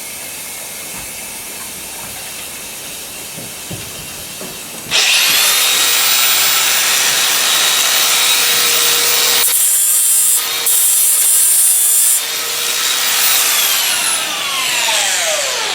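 Electric hand grinder switched on a few seconds in, running at full speed with a steady high whine. Midway it briefly grinds against the horse's hoof, which adds a harsh hissing rasp. It is then switched off and its whine falls as it spins down.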